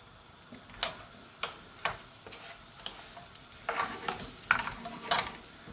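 Wooden spoon stirring fried courgettes and aubergine in a cast iron casserole dish, with a series of light knocks of the spoon against the pot, over a faint sizzle of onions and red peppers frying in a pan.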